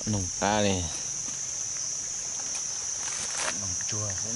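Steady high-pitched insect drone, a continuous chorus of cicadas or crickets in the forest, with a few short spoken words over it.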